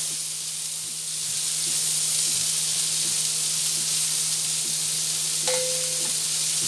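Sliced onions sizzling steadily as they fry in melted butter in a nonstick frying pan, stirred with a plastic slotted spatula. There is a short tap near the end.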